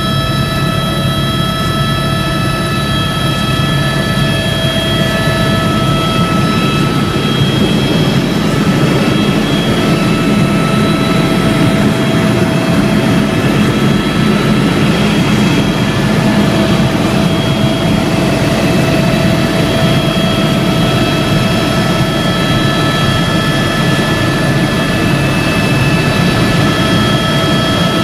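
Helicopter in flight heard from inside the cabin: loud, steady engine and rotor noise with a constant whine over it.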